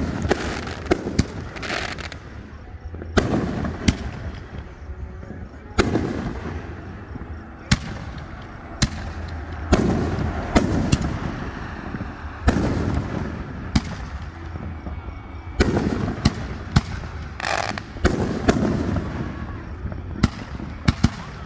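Fireworks show: aerial shells bursting with sharp bangs at irregular intervals, about one every second or two and sometimes several in quick succession, over a continuous low rumble of echoes.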